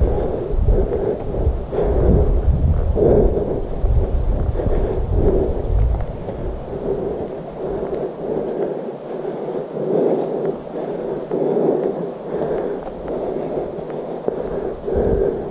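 Wind buffeting a body-worn camera's microphone, a low rumble, while the hiker walks a dirt trail with roughly one footfall a second. The rumble eases about halfway through, leaving mostly the steps.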